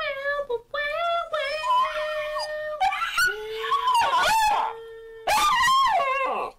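Rat terrier howling along with a woman who howls with him: several long, wavering howls rising and falling in pitch, with a short break near the end.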